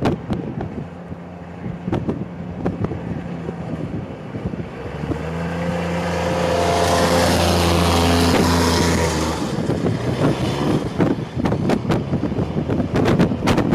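A motor vehicle passing close by, its steady engine hum and tyre hiss rising about five seconds in, peaking around eight seconds and fading by ten, with wind buffeting the microphone throughout.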